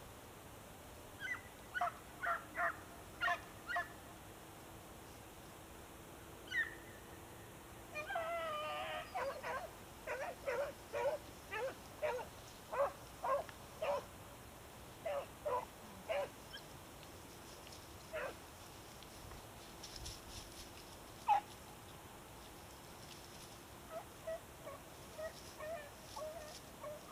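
Rabbit-hunting dogs baying on a rabbit's trail: runs of short, quick barks, several a second, loudest in a long run near the middle, with a few lone calls after it and a softer run near the end.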